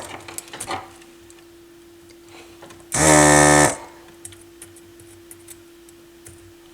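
Electric desoldering tool's vacuum pump buzzing once for under a second, about three seconds in, under a faint steady hum and a few small ticks.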